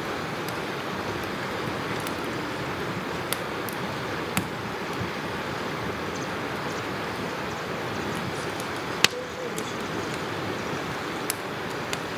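Steady rushing water noise with a few sharp clicks on top, the loudest about nine seconds in.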